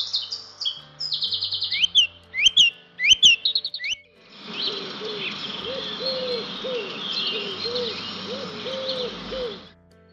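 Recorded birdsong as played by the Philips Somneo HF3650 wake-up light: quick chirps and rising whistled calls. About four seconds in it changes to a steady rushing backdrop with birds and a low call repeated over and over, which stops shortly before the end.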